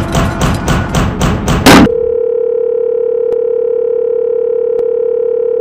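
Music with regular beats cuts off in a short loud burst about two seconds in. A steady test-card tone follows, like the tone that goes with colour bars, with a faint click about every second and a half.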